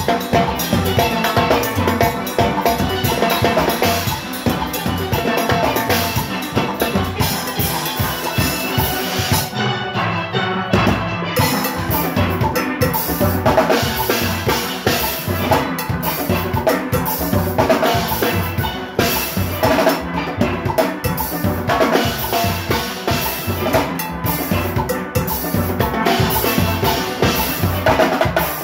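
A steel orchestra playing live: steel pans over the engine room's drum kit, cymbals and percussion, with a steady beat. The drums and cymbals drop out briefly about ten seconds in while the pans carry on.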